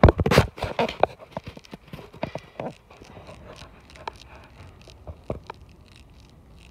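Irregular knocks and clicks, dense and loud in the first second or so, then sparser and quieter over a low steady background.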